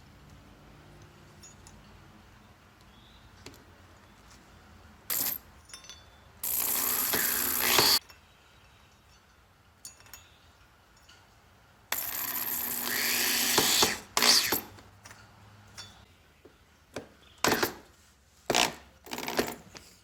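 Power drill running in two longer bursts of about one and a half and two seconds, the second with a rising whine, plus several short trigger bursts, drilling pilot holes for a doorbell mount.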